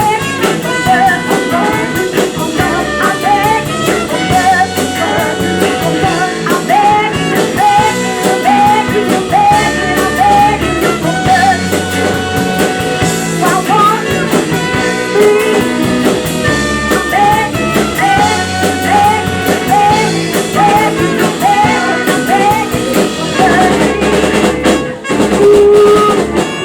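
Live blues-rock band playing with drum kit, bass, electric guitar and singing, a sliding melodic phrase repeating over a steady beat; near the end the song stops briefly and finishes on a loud held final chord.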